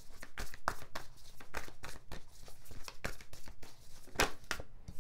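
A deck of tarot cards being shuffled by hand: a quick run of papery slaps and flicks, several a second, with a louder snap about four seconds in.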